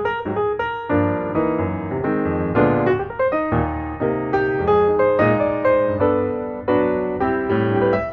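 Background piano music: a run of struck notes and chords that ring and fade, at a steady lively pace.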